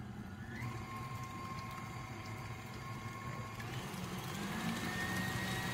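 Electric mixer beating pumpkin cheesecake filling in a bowl, its motor whining steadily. A little past halfway the speed is turned up and the whine steps higher and climbs, following the start-slow-then-build-up way of mixing.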